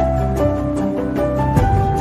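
Instrumental background music with held notes that shift in pitch every half second or so, over a light ticking beat.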